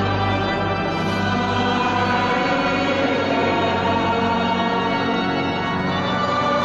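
Church pipe organ playing sustained chords with voices singing, in a large church; the harmony shifts near the end.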